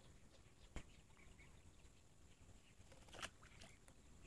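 Near silence: faint outdoor ambience, with one sharp click about a second in and a brief crackle near the end.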